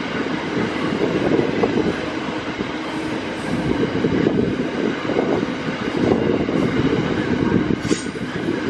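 Freight train ore wagons rolling past, their steel wheels giving a steady rumble and irregular clatter on the rails.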